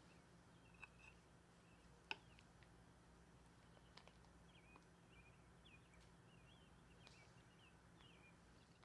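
Near silence with faint bird chirps repeating throughout and a few light clicks, the sharpest about two seconds in.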